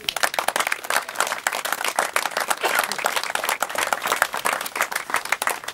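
Audience applauding, with many hands clapping steadily and irregularly.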